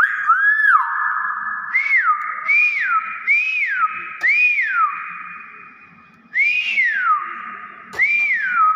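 Hill myna whistling: about seven clear whistles, each rising briefly and then sliding down in pitch, with a longer pause midway.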